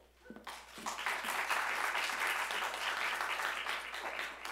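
Audience applauding. The clapping builds about half a second in and dies away near the end.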